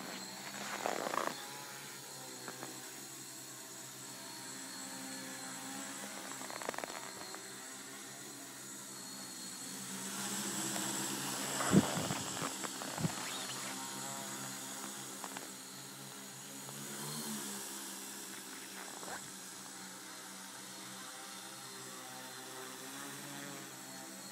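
Homemade tricopter's three electric motors and propellers buzzing steadily in flight, growing louder as it passes overhead about halfway through. A couple of sharp knocks come around the loudest moment.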